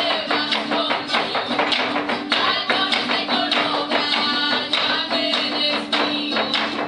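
Zapateado footwork on a hollow wooden tarima, a quick clatter of heel and sole strikes, over Mexican folk son music.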